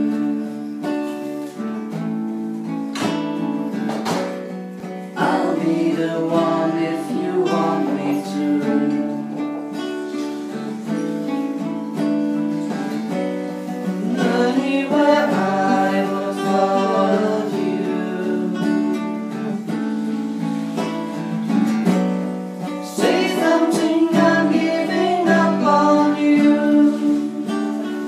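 Acoustic guitars strummed and plucked together, with a voice singing along that is strongest in the middle and near the end.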